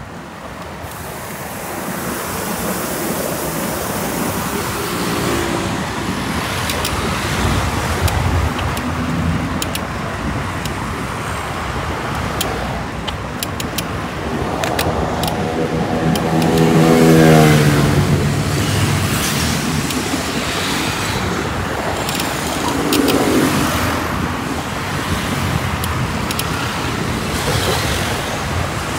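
Steady road traffic noise from a busy avenue as cars pass. About fifteen seconds in, one vehicle's engine passes close with its pitch falling, the loudest sound, and a fainter one follows a few seconds later; short light clicks and rattles are scattered through.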